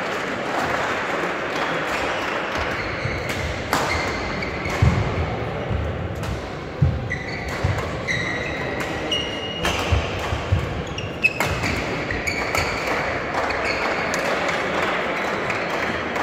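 Badminton rally: sharp clicks of rackets striking the shuttlecock, thuds of footwork and short high squeaks from court shoes on the sports-hall floor, over the echoing background din of the hall.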